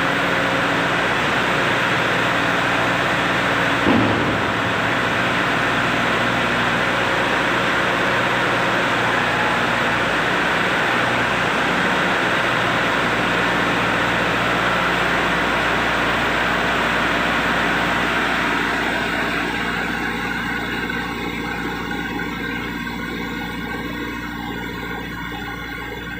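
Engine of a loading machine running steadily, with a brief thump about four seconds in. The sound gradually fades over the last several seconds.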